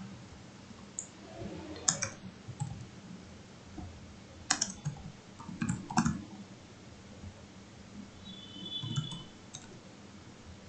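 Scattered keystrokes on a computer keyboard, a few keys at a time with pauses between, as code comments are typed.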